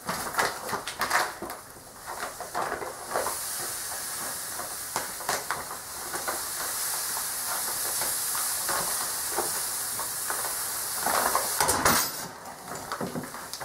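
Dry sand pouring out of a bag into a plastic tub of steel scraps: a steady hiss from about three seconds in, swelling briefly near the end as the last of the bag goes in. Before the hiss, the bag rustles and there are scattered knocks.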